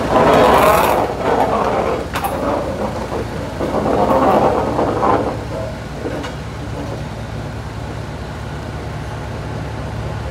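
Diesel locomotive engine running steadily, with two louder rushes of noise in the first five seconds and a couple of sharp clanks, about two and six seconds in.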